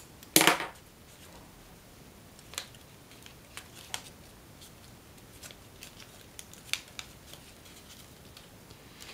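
Stiff origami paper being handled, folded and creased by hand: a loud, brief rustle about half a second in, then scattered soft crinkles and small ticks.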